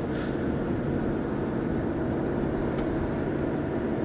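Steady road and engine noise heard from inside a moving vehicle's cabin: a low, even hum.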